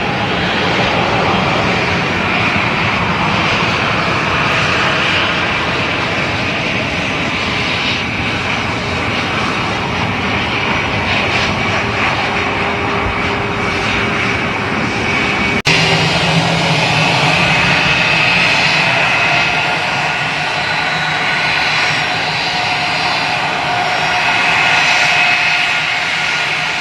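Jet airliner engines running loud and steady, a dense rushing noise with a high whine. Partway through, the sound cuts abruptly to another stretch of engine noise in which the whining tones stand out more.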